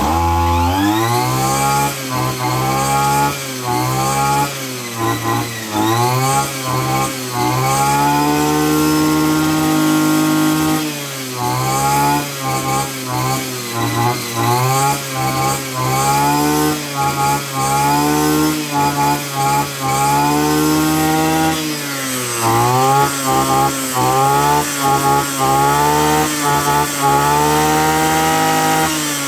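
Kawasaki TD33 34 cc two-stroke brush cutter engine being revved on the throttle trigger, its pitch climbing to a high scream and falling back again and again, with runs of quick short blips in between.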